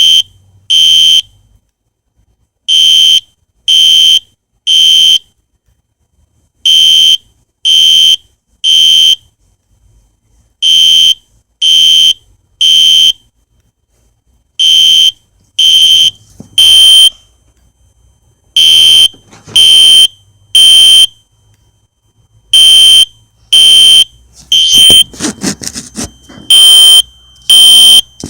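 Spectra Alert fire alarm sounding a loud, high beep in groups of three, each group followed by a short pause and repeating about every four seconds: the temporal-three evacuation signal. Near the end a brief, lower rustling noise falls between two groups.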